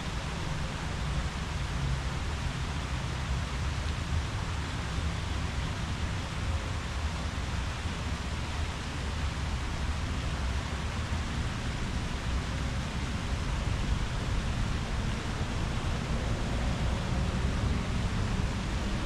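Steady rustle of leaves in the wind, an even hiss with a low, fluttering rumble underneath.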